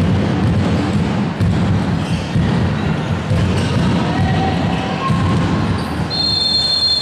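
Handball bouncing and thudding on the floor of a reverberant sports hall over the steady murmur of spectators. About six seconds in, a long, high, steady whistle starts, most likely the referee's whistle.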